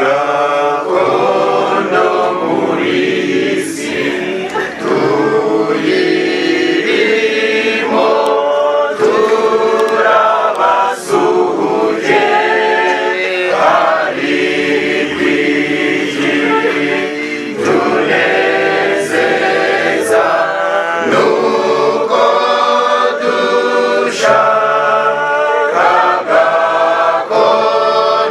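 A choir singing in harmony, several voices together.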